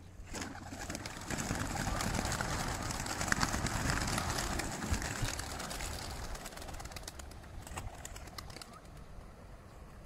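A flock of racing pigeons bursting out of opened transport crates, a dense clatter of wingbeats that swells about a second in and fades out near the end as the birds fly off.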